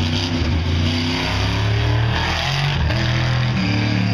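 1972 Ford Bronco tuff truck's engine revving as it runs the dirt course. The engine note dips briefly a little under three seconds in, then climbs again.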